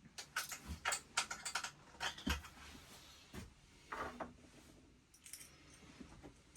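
Metal tools clinking and rattling in a quick run of clicks and clatters, busiest in the first two and a half seconds, then a few scattered knocks.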